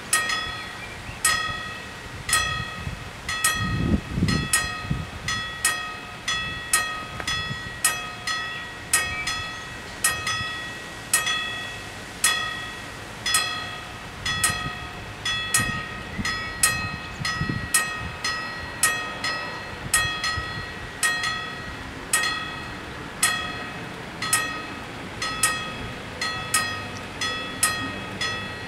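Two electric level-crossing warning bells striking rapidly and continuously, their steady rhythms overlapping out of step, each strike ringing briefly: the warning that the barriers are down and a train is due.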